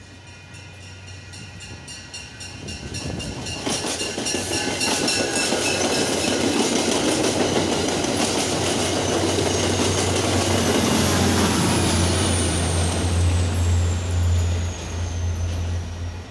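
MBTA push-pull commuter train passing at speed: the cab car and coaches clatter over the rail joints, getting louder as they approach. In the second half the EMD GP40MC diesel locomotive at the rear goes by, with a deep engine drone and a high whine that falls in pitch as it passes.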